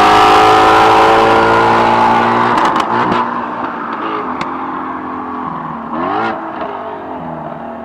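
Ford Mustang Shelby GT350's 5.2-litre flat-plane-crank V8 exhaust, revs falling slowly off after a loud pull, with a few sharp cracks from the exhaust about three seconds in. A short rev rises about six seconds in, and the engine then runs on steadily and quieter.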